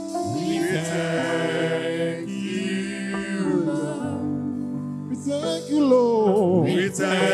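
Gospel choir singing a worship song over held chords of instrumental accompaniment, with a voice sliding down in a wavering run near the end.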